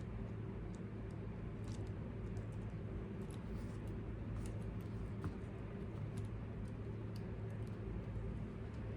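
Scattered light clicks and taps of small RC crawler parts being handled and fitted by hand, over a steady low hum.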